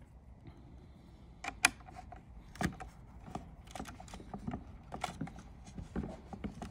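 Irregular light metallic clicks and taps of an Allen key working a small bolt as it is threaded in by hand, the sharpest click about one and a half seconds in, followed by many small ticks.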